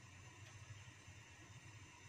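Near silence: room tone with a faint steady low hum and light hiss.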